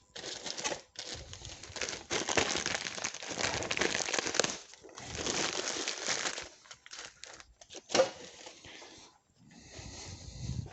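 Hand wiping the thermostat housing clean: irregular rubbing and crinkling scrubbing strokes, with a sharp tap about eight seconds in.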